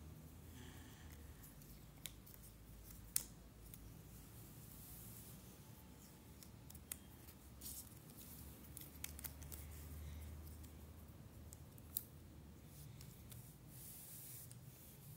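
Cardboard jigsaw puzzle pieces being slid over the floor and pressed together by hand: faint scattered taps and clicks, a few of them sharper, over a low steady hum.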